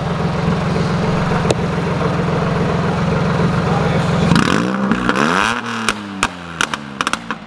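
Modified Toyota Aygo with a side-exit exhaust idling loudly, then revved once about four seconds in, the pitch rising and falling back, with a few sharp pops as the revs drop.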